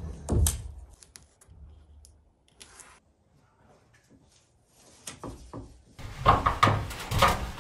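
Scattered light knocks and clicks of handling and work, with a sharp knock at the start and another about half a second in. It goes quiet in the middle, then turns into busier, louder clattering near the end.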